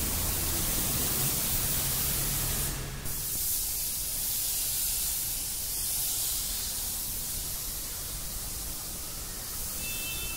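Gravity-feed compressed-air paint spray gun hissing steadily as it sprays a coat of paint onto a car's body panels, with a brief break about three seconds in.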